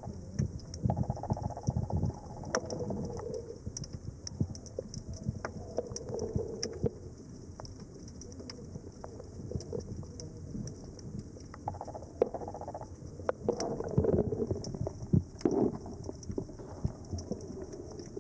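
Underwater sound picked up by a camera: low, muffled bubbling and rumbling in irregular bursts, with scattered sharp clicks throughout.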